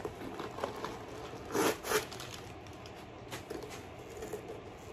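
Rustling and light clicks from a faux-leather handbag being handled and opened, with two short, louder rustles about one and a half to two seconds in.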